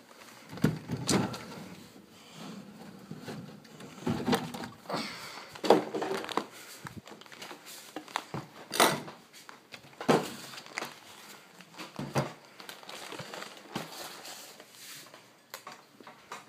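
Irregular knocks, thumps and rustling of a phone being handled and moved about close to the microphone, with the loudest knocks about a second in and again around six, nine and ten seconds in.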